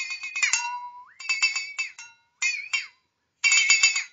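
Flexatone shaken in four short bursts, its beaters striking the steel blade in a rapid rattle that gives a ringing, trilling tone. The pitch swoops as the blade is bent: it falls steeply in the first burst and rises at the start of the second.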